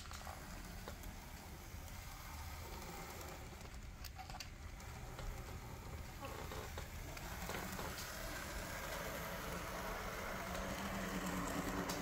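Märklin Z scale BR 212 model diesel locomotive running along the track: a faint steady whir of its small electric motor and wheels on the rails, growing louder from about halfway through, with a few light clicks.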